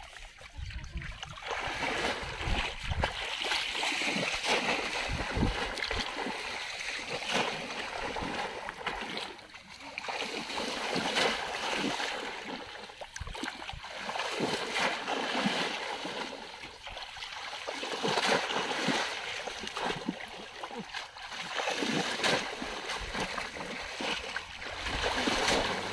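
Shallow water splashing and sloshing as bamboo polo plunge-basket traps are thrust down into a flooded field and people wade through it. The sound swells and falls every few seconds with each push of the traps.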